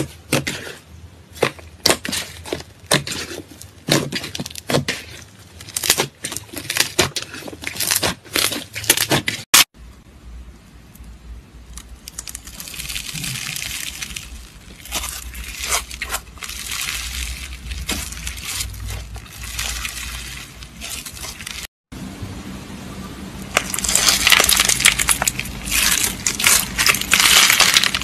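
Hands working slime: sharp sticky pops and clicks as it is pressed and pulled apart. Then a softer, even crackle as a slime with a crunchy white coating is stretched, and near the end a loud, dense crunching from slime packed with foam beads.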